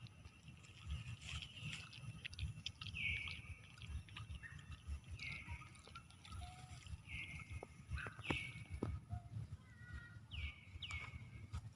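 Short high-pitched animal calls, each dropping in pitch, repeated about six times at irregular intervals, over a low rumble and scattered clicks.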